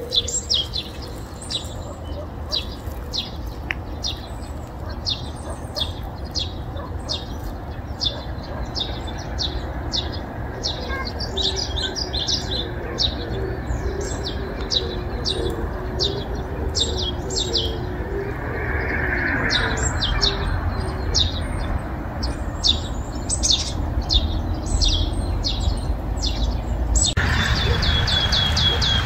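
Small birds chirping, short high chirps several times a second, over a steady low background rumble.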